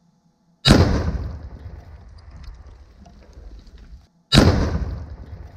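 Two tannerite explosions set off inside a diesel engine block. Each is a sudden blast followed by a long rolling rumble that fades over several seconds, and the second comes about three and a half seconds after the first.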